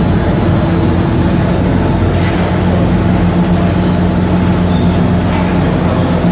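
GVB passenger ferry's engine running steadily underway, a loud, even low drone with a constant hum, heard from inside the passenger cabin.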